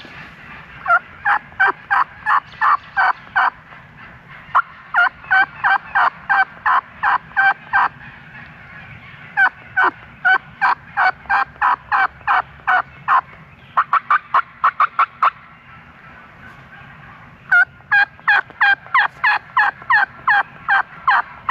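Turkeys yelping: five runs of short, sharp yelps, each note dropping in pitch, about three a second, with one quicker run about two-thirds of the way through.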